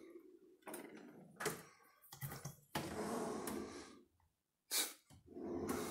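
IKEA kitchen drawers being pulled open and pushed shut on their runners, the cutlery and plastic utensils inside rattling, with several separate knocks and sliding sounds.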